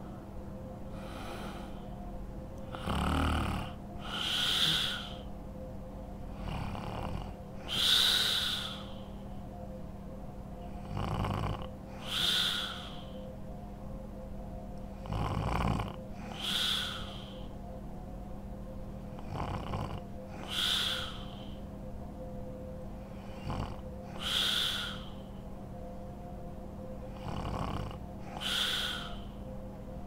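Woman snoring in deep sleep: a regular snore-and-breath cycle about every four seconds, each snoring inhale followed by a louder, breathy exhale.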